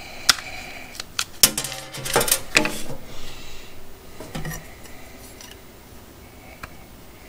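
Small metal saw-blade adapter rings on their card being handled, with sharp clinks and clatter that are densest from about one to three seconds in. Softer rustling and a few light taps follow.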